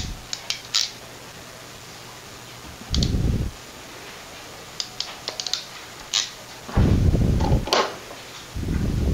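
A hand wire crimper pressing crimp-on wire nuts onto twisted wire ends: scattered sharp clicks and snaps from the tool, a quick run of them about five seconds in. Dull low thumps of the tool and hands are handled near the start, about seven seconds in (the loudest) and near the end.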